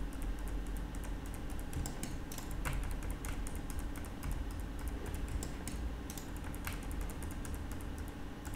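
Computer keyboard keys and mouse buttons clicking irregularly, many separate taps, over a steady low hum.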